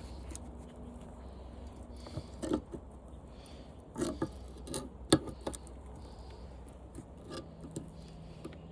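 Pliers gripping and bending up part of a window air conditioner's aluminum-finned condenser coil: scattered metallic clicks and scrapes, the sharpest about five seconds in.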